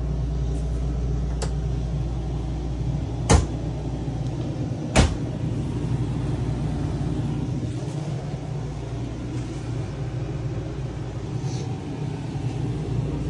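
Steady low mechanical hum, typical of the camper's air conditioner running, with two sharp knocks about three and five seconds in and a few faint clicks before them.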